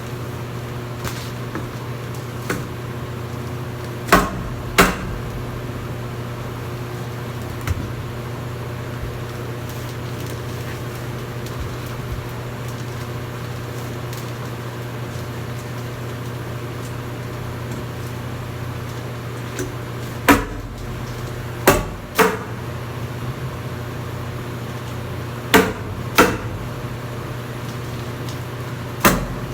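Steady low hum with sharp knocks every few seconds, mostly in pairs about half a second apart.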